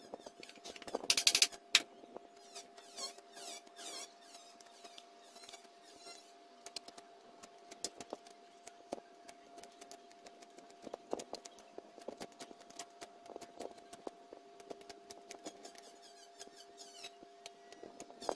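Knife blade shaving and scraping bamboo: a loud scrape about a second in, then many short scraping strokes and clicks as a small bamboo piece is whittled by hand. A faint steady two-note hum runs underneath.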